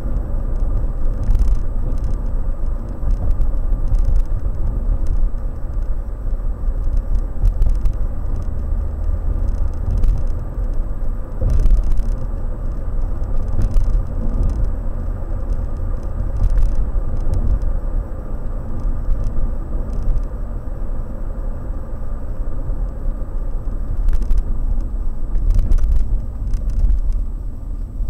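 Car driving along a road: steady low road and engine rumble heard from inside the car, with scattered light clicks and rattles.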